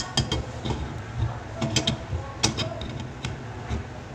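Irregular sharp metallic clicks and taps as a metal tool works against a chrome-plated drain fitting under a wash basin to tighten it, the loudest about two and a half seconds in.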